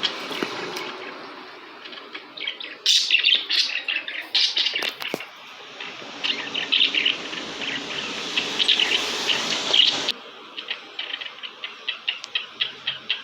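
Several budgerigars chattering, with many rapid, overlapping short chirps; about ten seconds in the chatter thins to sparser separate chirps.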